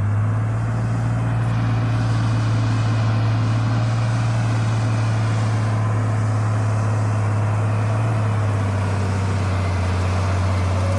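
Heavy machine's diesel engine running at a steady speed, a deep even hum that does not rise or fall.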